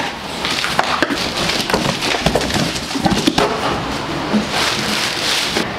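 Cardboard box and packaging handled: rustling, scraping and tearing, with many short clicks and crackles.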